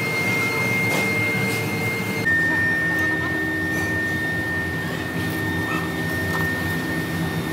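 Shop machine tool running steadily: a motor hum with a thin, high, steady whine. The whine steps slightly lower a little over two seconds in.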